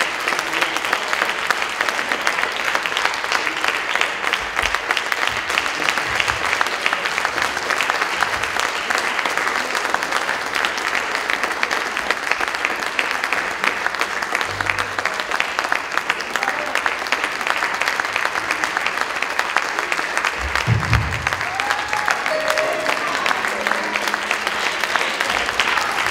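Church congregation clapping steadily, with a few short low notes from the band underneath.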